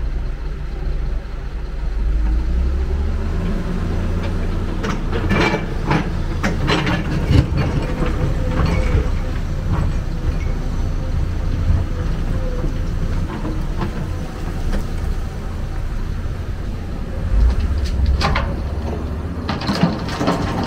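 Excavator engine running with a steady low drone, with bursts of clattering about five to seven seconds in and again near the end.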